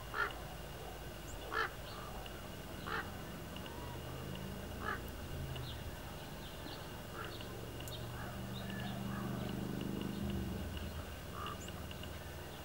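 Short bird calls, four clear ones in the first five seconds and fainter ones after, over a faint steady high whine. A low droning hum swells about eight seconds in and fades two seconds later.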